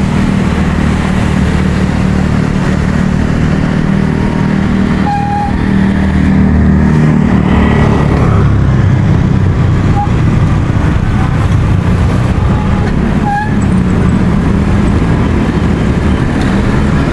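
Busy street traffic heard from a moving bicycle: motorcycle and car engines running close by, a steady loud rumble throughout.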